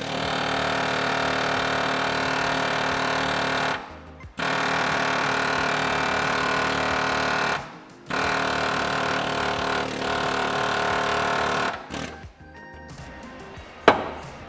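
Pneumatic air hammer rattling in three long bursts of about four seconds each, working a stuck front hub and control arm loose under the car. A sharp metal knock comes near the end.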